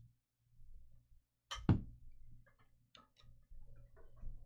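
A dull knock about one and a half seconds in, then scattered light clicks and taps, like objects handled on a tabletop, over a low steady hum.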